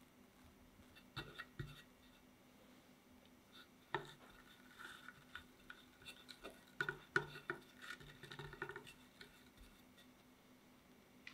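Metal offset spatula spreading and smoothing cream cheese frosting on a cake on a metal turntable: soft scattered scrapes and light clicks of the blade against the cream and turntable, busiest from about four to nine seconds in.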